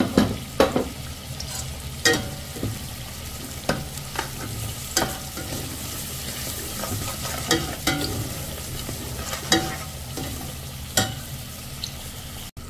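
A steel skimmer ladle stirring and scraping through frying masala in a steel pot, with sharp clinks of the ladle against the pot every second or two. Underneath is the steady sizzle of onions, ginger-garlic paste and spices being fried in oil.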